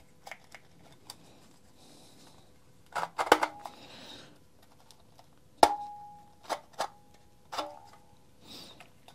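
Hard plastic clicks and knocks from a trimmer head spool being turned in the hands while nylon trimmer line is pulled out through its eyelets, with a soft hiss of the line sliding. A sharp click about five and a half seconds in is followed by a brief ringing tone, and a fainter ring comes about two seconds later.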